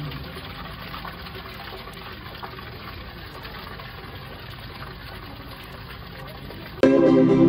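Steady splashing of water pouring from a tipped jar fountain into a pebble-filled pool. Near the end, louder music cuts in suddenly.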